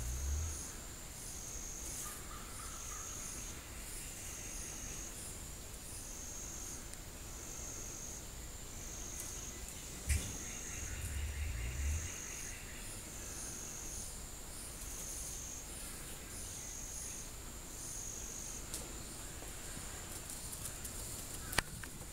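Insects calling in a steady pulsed buzz that repeats about once a second. A deep low hum sounds briefly at the start. About ten seconds in, a short sharp 'spit' is followed by a low hum of just over a second: the spit and drum of a wild turkey gobbler in full strut.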